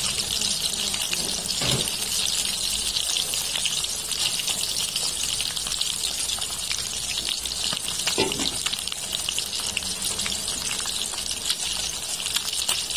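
Small battered fish deep-frying in hot oil, a steady dense sizzle full of fine crackling. This is the second fry that crisps them.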